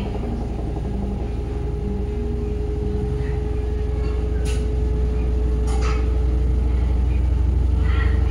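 Front-loading washing machine running with water in its drum: a steady low hum and motor tone that slowly grows louder, with two light clicks about a second apart near the middle.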